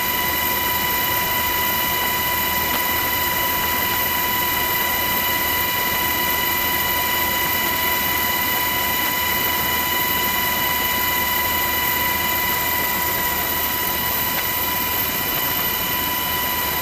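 Aircraft turbine engines running steadily: a loud, even roar with a constant high-pitched whine that does not change.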